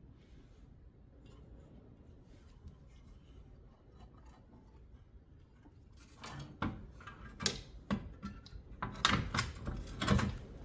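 Quiet at first, then about six seconds in a run of irregular clinks and knocks from metal parts and tools being handled while the replacement wheel hub assembly is fitted and its mounting bolts are started.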